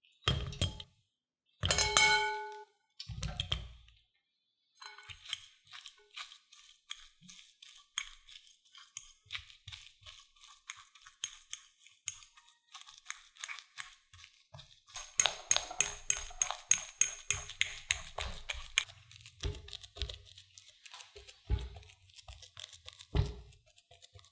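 Boiled potato cubes dropped from a wire strainer into a glass bowl: a few knocks and a clinking, ringing hit of metal on glass. Then a metal fork mashing the soft potatoes, with quick repeated taps and scrapes against the glass bowl that grow busier and louder about halfway through.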